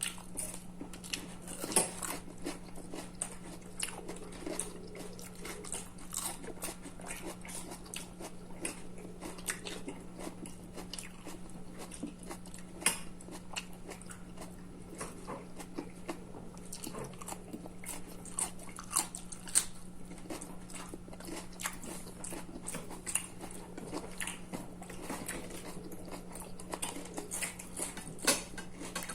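Close-miked eating: chewing and mouth smacks with many short sharp clicks scattered throughout, over a steady low hum.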